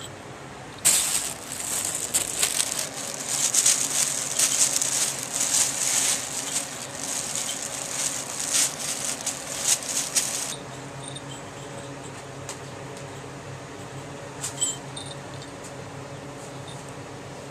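Clear plastic sheeting crinkling and crackling as a kitten plays on it. It starts about a second in and stops suddenly about ten seconds in. Later come a few faint jingles of a small bell on a kitten's collar.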